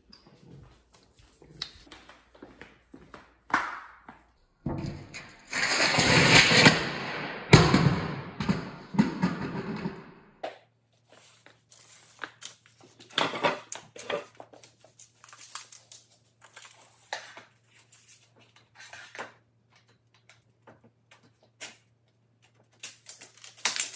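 Scattered knocks, then about five seconds of loud rustling noise. After that, a faint steady hum under light footsteps in flip-flops on a tile floor, and a few sharp clicks from a tape measure being laid out near the end.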